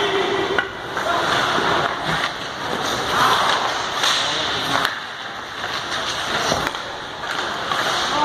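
Ice hockey skates carving and scraping across rink ice, with several sharp clacks of sticks and puck, echoing in an indoor arena.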